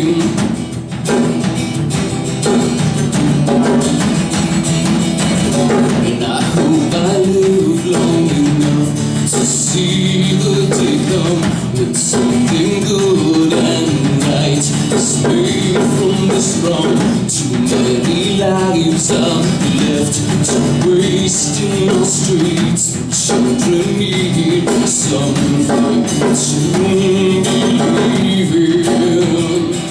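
Live acoustic guitar song with a steady percussive beat and a man singing at times.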